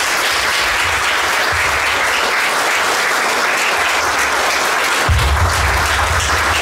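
A crowd of people applauding steadily.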